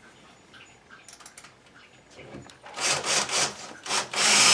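Small handling clicks, then a cordless drill with a countersink bit cutting into the wooden cabinet face frame to recess a screw hole: a few short bursts about three seconds in, then running steadily near the end.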